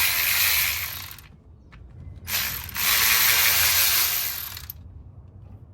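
Cordless battery ratchet running in two bursts, spinning fasteners. The first burst stops about a second in; the second runs for about two and a half seconds.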